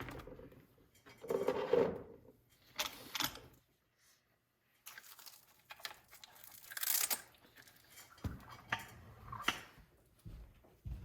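Handling noises: several rasping, tearing bursts and some crinkling, with a short quiet gap about four seconds in and a few light knocks near the end.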